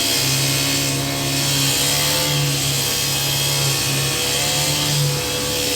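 Concrete truck's engine running steadily at raised revs, its pitch wavering slightly, as it turns the drum to discharge concrete.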